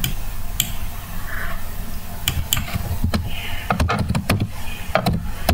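Computer keyboard and mouse clicks: a few scattered single clicks, then a quick run of keystrokes from about four seconds in, over a low steady hum.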